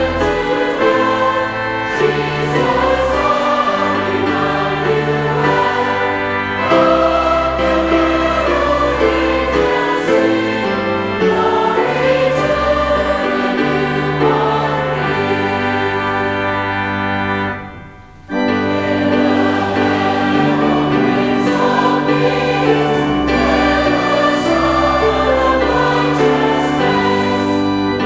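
Choir singing a slow, hymn-like piece with sustained notes over a steady bass accompaniment, with a brief break about two-thirds of the way through.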